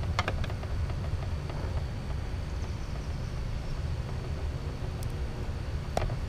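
Swiss Army knife scraping and picking dead bark off juniper deadwood: a few light clicks about a second in and a sharp click near the end, over a steady low rumble.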